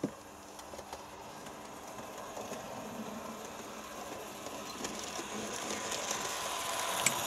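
Märklin 3369 ÖBB class 1118 H0 model electric locomotive, fitted with a high-performance motor and ball bearings, running light on Märklin M-track. Its motor and wheel running noise grows louder as it approaches and passes, with a sharp click about seven seconds in.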